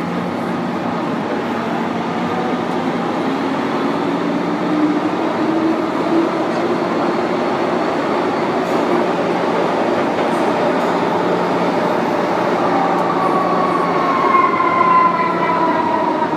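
MTR M-Train metro car (A205) running, heard from on board: steady rumble and rolling noise with a motor whine that rises in pitch in the first half. Near the end, whining tones fall in pitch as the train slows.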